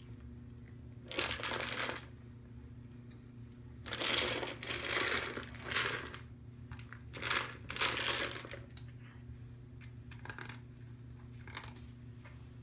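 A plastic foraging cup knocked and pushed across a wood floor by a cat's nose, dry food pieces rattling inside it, in several short rattling, scraping bursts. A steady low hum runs underneath.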